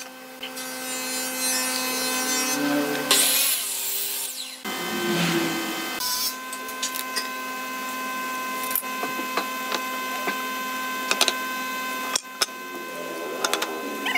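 Electric miter saw cutting through a wooden board, loudest about three seconds in. After it stops comes a steady hum with light scratches and ticks from a pencil drawing lines on wood against a steel square.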